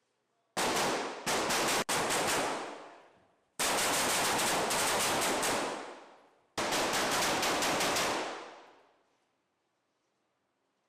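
M4-type carbines firing rapid strings of shots in five bursts, loud and echoing, each string trailing off in a long reverberant tail off the shoot-house walls.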